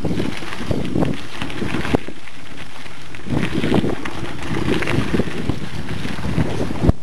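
Wind buffeting the microphone of a mountain bike's ride-along camera, mixed with irregular knocks and rattles as the bike rolls over a bumpy dirt double-track. There is a sharp jolt just before the end.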